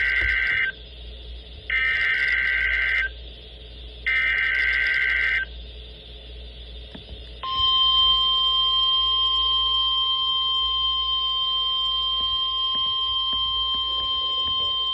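NOAA Weather Radio alert tones for a weekly test. The digital SAME header ends its first burst, then gives two more data bursts about a second apart. After a short gap, the steady 1050 Hz warning alarm tone starts about seven and a half seconds in and holds.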